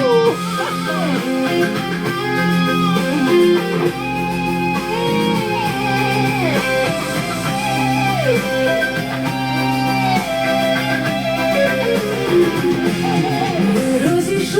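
Background music: an instrumental break in a pop song, led by a gliding electric guitar melody over sustained chords.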